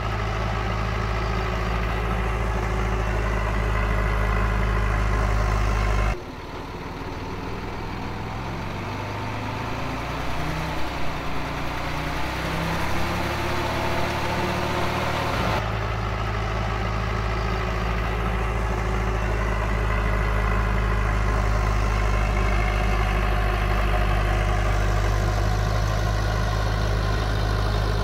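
Heavy diesel engines of earthmoving machinery running steadily with a deep hum. About six seconds in the sound switches abruptly to a quieter engine whose pitch climbs as it revs, with a few knocks, then about fifteen seconds in it switches back to the steady engine.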